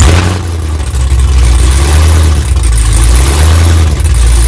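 Chevrolet Camaro SS 6.2-litre LT1 V8 running very loud on open headers, just after being started; it dips briefly in the first second, then holds steady.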